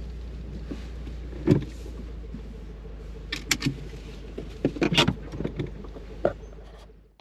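Car engine running, heard from inside the cabin as a steady low hum, with scattered clicks and knocks of things being handled, the sharpest about a second and a half in and around three to five seconds in. It fades out near the end.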